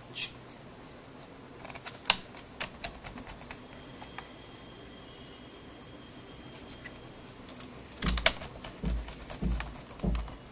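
Scattered clicks and light ticks from handling a laptop's plastic case and fitting small screws. A denser run of clicks and low knocks starts about eight seconds in as the laptop is handled more.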